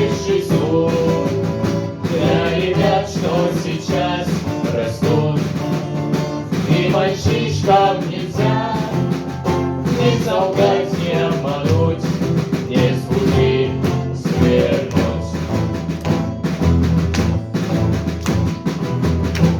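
A small vocal-instrumental ensemble performing a song live: singing over guitar-led band accompaniment.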